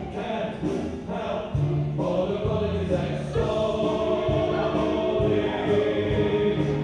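Music with a choir singing long held notes. A low bass part comes in about one and a half seconds in.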